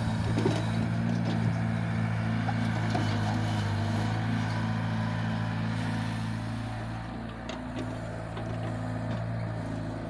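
Diesel engines of a Caterpillar E70B tracked excavator and a farm tractor running steadily while the excavator digs and loads soil into the tractor's trolley, with a few light knocks near the end.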